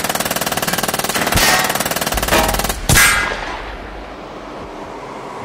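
A long, rapid burst of automatic gunfire, ending with one louder blast about three seconds in that dies away.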